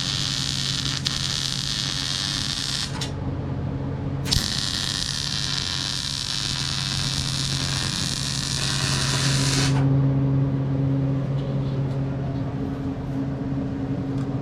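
Workshop fabrication noise: a steady low hum under two long spells of hissing noise, the first about three seconds long and the second, starting about four seconds in, about five and a half seconds long.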